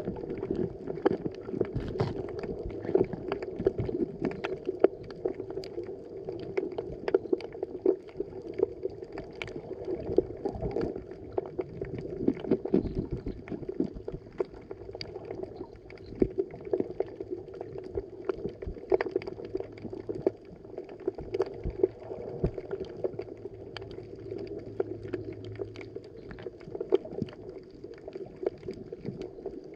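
Underwater ambience heard through a camera's waterproof housing: a steady muffled water rush with frequent irregular sharp clicks and pops.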